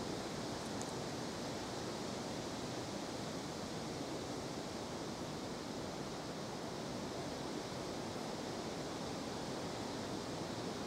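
Steady outdoor background noise: an even rushing hiss with no distinct sounds standing out.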